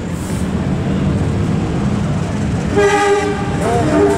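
Approaching passenger train's locomotive horn sounding a blast about three seconds in, then starting again right at the end, over a steady low rumble.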